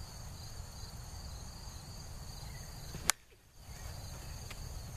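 Plastic wiffle ball bat hitting a wiffle ball with a single sharp crack about three seconds in. Steady high chirring of crickets and a low rumble run underneath.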